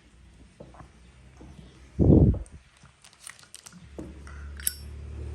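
Zippo lighters being handled: small scattered clicks and knocks, a short low-pitched thud about two seconds in, and near the end sharp metallic clicks with a brief high ring, like a Zippo lid snapping. A low steady hum comes in during the second half.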